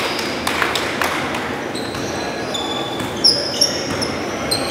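Basketball shoes squeaking on a hardwood gym floor in short high chirps, mixed with the ball bouncing and knocking. The loudest knock comes a little over three seconds in.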